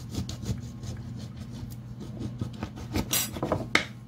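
Light clicks and scrapes of kitchen utensils against a glass bowl and the counter, with a few sharper knocks about three seconds in, over a low steady hum.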